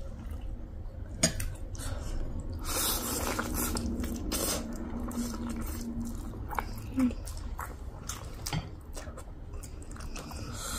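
Metal forks clinking and scraping against plates, with noodles being slurped and chewed close to the microphone; the slurping is densest about three seconds in.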